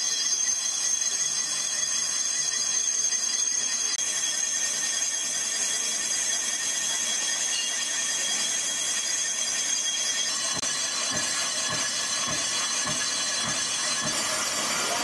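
Metal lathe turning a cast brake drum: the cutting tool gives a steady high-pitched squeal over the machine's running noise. The squeal changes pitch about two-thirds of the way through, and faint low knocks come in near the end.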